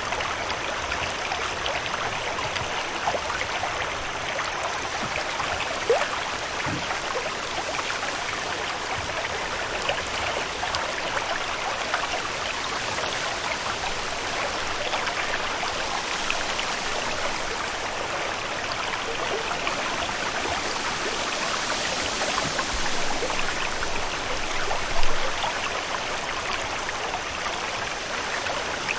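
Steady water ambience: continuous running, trickling water with many small droplet-like ticks, and one brief louder splash-like peak near the end.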